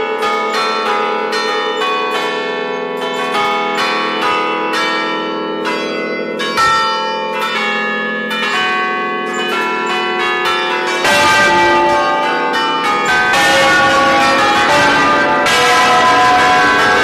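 Church tower bells played as a tune from a baton keyboard, struck in quick succession with their ringing tones overlapping. About eleven seconds in the sound turns louder and harsher, heard close beside the bells in the belfry.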